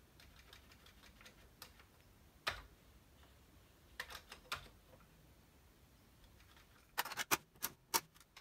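Keys being pressed on a Commodore home-computer keyboard: a few single clicks spaced a second or more apart, then a quick run of about six clicks near the end.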